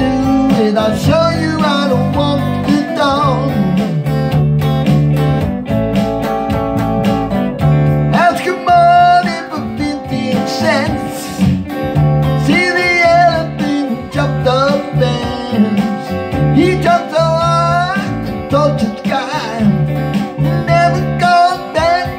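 A man singing a blues song while playing a sunburst single-cutaway electric guitar.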